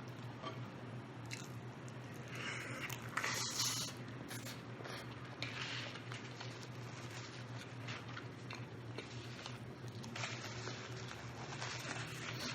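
A person chewing and biting food close to the microphone, with many small wet mouth clicks and a louder bite about two to four seconds in. A steady low hum runs underneath.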